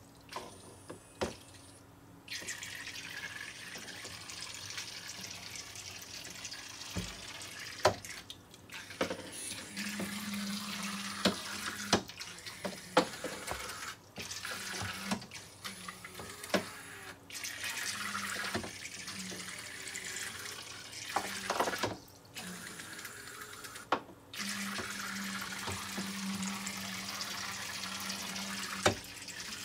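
Zuru Micro Boats, tiny battery-powered toy speedboats, running on a water track: their propellers churn the water with a steady splashing hiss. A low motor buzz comes and goes, and there are occasional sharp clicks as the plastic boats knock against the track.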